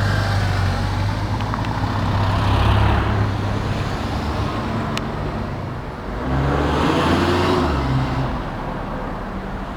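Road traffic: a steady low engine hum, with two vehicles passing, about three seconds in and again about seven seconds in.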